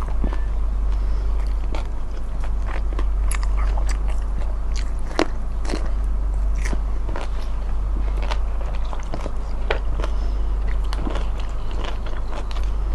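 Close-miked eating sounds: a person biting and chewing food, with irregular wet clicks and crunches, over a steady low hum.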